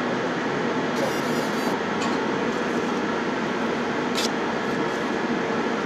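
Fiber laser marking machine running with a steady hiss, and brief high crackles as the laser marks the plate, the sharpest about four seconds in.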